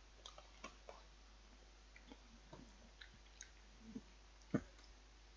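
Faint chewing and wet mouth clicks from eating a chocolate truffle, with one louder click a little over four seconds in.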